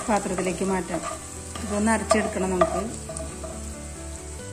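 Chopped onions sizzling in hot oil in a nonstick frying pan, stirred and scraped with a wooden spatula, with background music carrying a melody over it.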